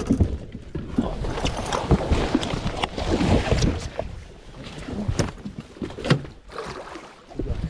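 A hooked muskie thrashing at the surface beside a fishing boat: water splashing and churning in irregular surges, with short sharp knocks mixed in.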